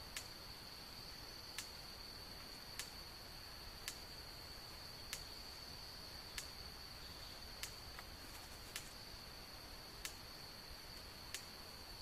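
Faint, steady, high-pitched drone of an insect, with a sharp click about every second and a quarter, about ten in all.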